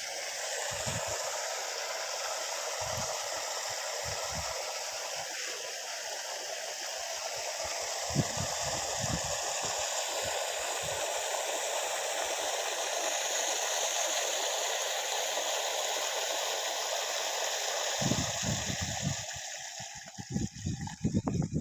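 Water spraying steadily from a rain pipe, a perforated spray hose, giving an even hiss that fades near the end.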